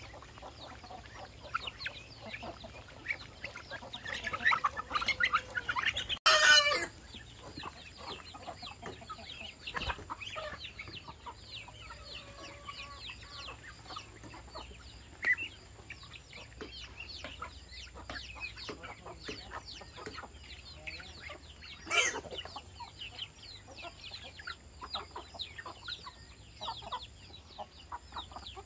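Chickens clucking and calling, with a rooster crowing loudly once about six seconds in. Two sharp knocks come later.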